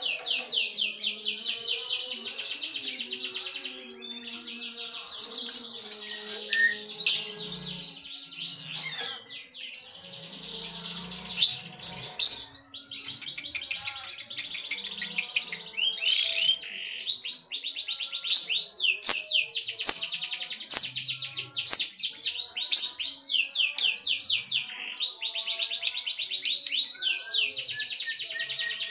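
A lovebird singing in long runs of very rapid, chattering trill lasting several seconds each, broken by short sharp chirps. This is the song its keeper presents as the sign of a 'konslet' lovebird.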